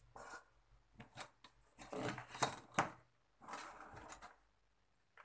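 Scraping strokes of a hand tool on a thin metal can, in irregular bursts of up to about a second each, loudest about two to three seconds in.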